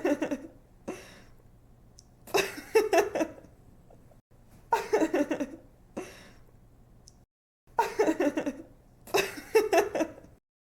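A young woman laughing in five short fits of quick, pulsing 'ha-ha' giggles, with brief pauses between them; the laughter stops shortly before the end.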